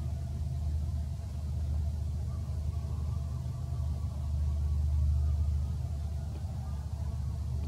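A steady low rumble, swelling a little about five seconds in, with faint thin tones above it.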